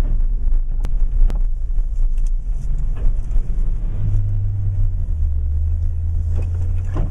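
Motor vehicle engine running with a steady low rumble; its hum steps lower about five seconds in. Two sharp clicks about a second in.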